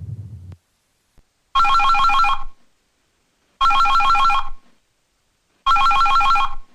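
Samsung SGH-P300 mobile phone ringtone in the style of a classic telephone ring: a fast electronic trill, sounded three times for about a second each, about two seconds apart.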